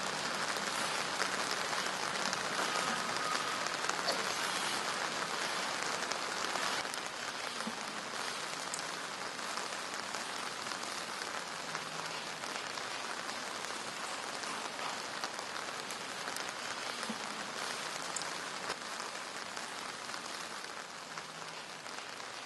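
Steady rain, an even hiss made of many small drop ticks.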